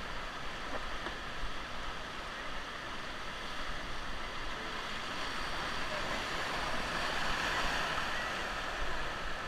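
River whitewater rushing and splashing around a raft, with wind on the microphone.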